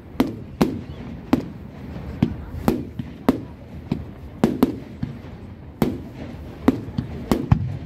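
Aerial firework shells bursting overhead in a quick, steady run of sharp bangs, about two a second.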